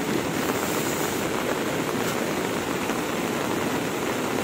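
Steady rushing noise of a cold lahar flood, rain-swollen volcanic mudflow water pouring down a river channel, mixed with heavy rain.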